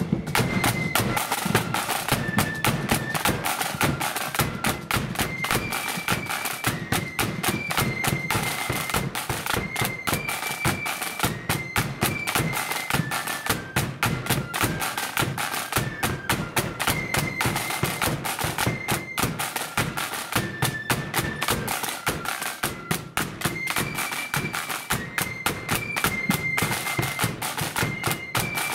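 Marching flute band playing a tune: flutes carry a high, stepping melody over rapid side-drum strokes and a bass drum beat.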